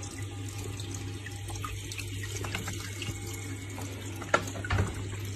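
Steady trickle and splash of water from an aquarium filter, with a low pump hum underneath. A sharp knock comes about four seconds in, followed by a couple of softer bumps.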